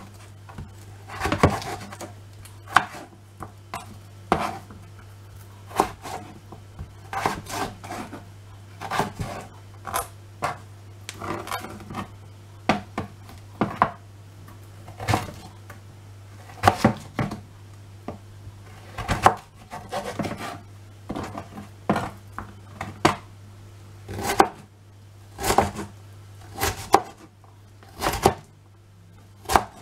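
A chef's knife chopping carrots on a cutting board: sharp knocks at an uneven pace, roughly one or two a second, as the carrot is cut into strips and then diced.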